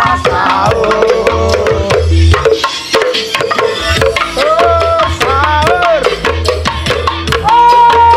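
Loud music from the speakers of a miniature sound-system truck: hand drums over a deep, regular beat, with a sliding melody line on top.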